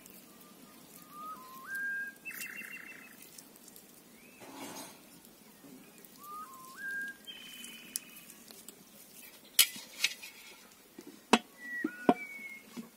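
A bird singing twice: a whistled phrase that steps up in pitch, followed by a buzzy trill. Near the end, a few sharp clicks and knocks of metal as the cast-iron lid is set onto the pan.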